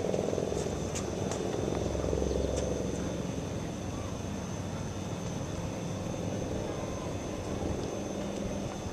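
Steady low rumble of distant engines, swelling briefly a couple of seconds in, with a few faint ticks early on.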